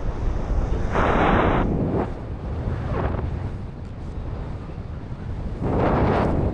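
Wind buffeting the microphone: a steady low rumble with louder rushing gusts about a second in and again near the end.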